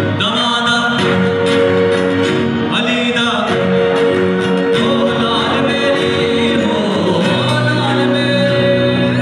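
Live band playing through a PA: a male singer with keyboard chords held under the melody and a guitar.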